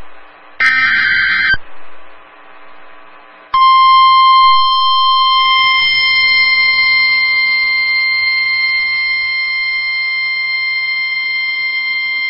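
NOAA Weather Radio broadcast: a one-second SAME digital header burst, a harsh warbling data screech, then about two seconds of faint radio hiss. At about three and a half seconds the steady 1050 Hz warning alarm tone starts and holds for about nine seconds, announcing the flood warning that follows.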